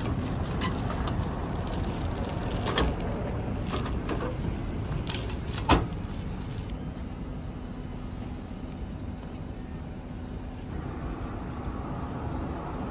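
Metal flap of a vending machine's spoon dispenser pushed and snapping back, with clicks and clacks as a plastic-wrapped spoon is pulled from the slot. The two sharpest clacks come about three and six seconds in, over a steady low rumble.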